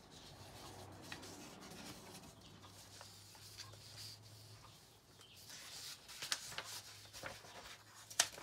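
Faint rustling and handling of paper sheets, with scattered light clicks and taps that grow busier in the second half and one sharp click near the end. A low steady hum sits underneath for the first half.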